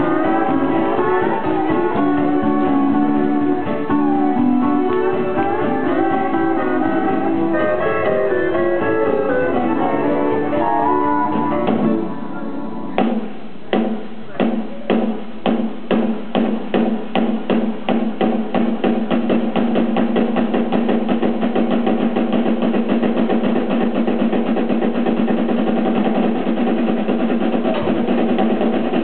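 Live western swing band playing, with steel guitar and electric guitar. About twelve seconds in the band drops back and the drums take over, single strokes coming faster and faster until they run into a roll over a held low note.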